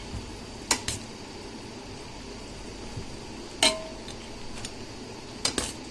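A metal utensil knocking against a metal cooking pot while rice is added: two knocks about a second in, one that rings briefly in the middle, and two near the end, over a steady background hiss.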